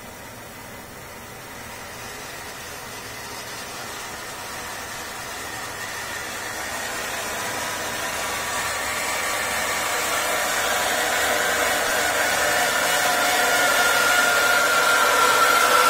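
Gas boiler heat exchanger running on domestic hot water with the burner ramping up: a hissing rush that grows steadily louder, with a whining howl of a few steady tones rising out of it in the second half. The noise is cavitation, tiny steam bubbles collapsing in a heat exchanger clogged with limescale.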